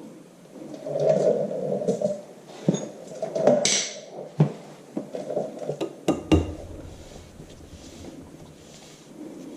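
Hand tools clinking and scraping on the steel wheel hub and castle nut while a cotter pin is worked into place. There are irregular small metallic clicks and handling noises, a brief hiss just before four seconds, and a cluster of sharp clicks around six seconds.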